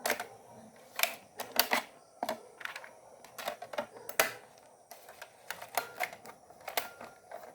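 Sharp, irregular clicks and taps, about a dozen, from hands working at a desktop PC.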